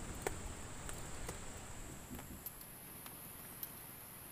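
Flooded river rushing steadily, with a high, steady buzz above it that shifts higher about halfway through. A few sharp clicks stand out, the loudest about a quarter second in.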